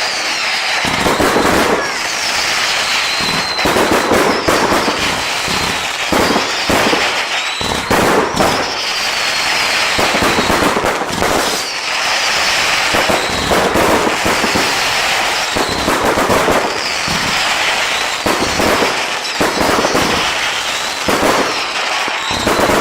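Consumer fireworks going off in a continuous barrage: dense crackling with many sharp bangs, and short whistling tones that fall in pitch.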